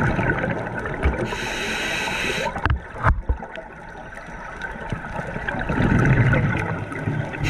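Scuba diver breathing through a regulator, heard underwater: a hissing inhale lasting about a second, a few short thuds around three seconds in, then the low gurgle of exhaled bubbles near the end.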